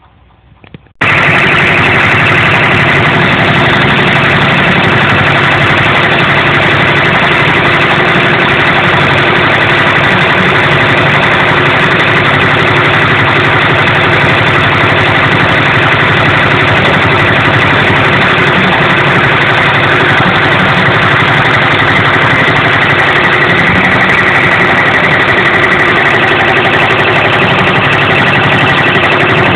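Brother PR600 multi-needle embroidery machine starting abruptly about a second in, then running steadily and loudly as it stitches.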